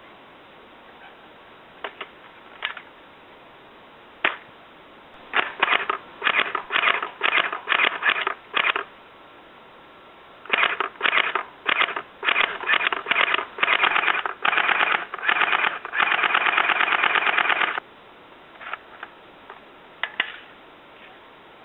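CYMA CM023 MP5 electric airsoft gun firing: a few single shots, then many short bursts, then a run of full-auto lasting about two seconds, and a few last single shots near the end.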